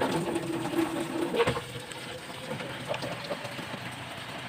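A motor running with a steady hum. A few soft clicks come about a second and a half in.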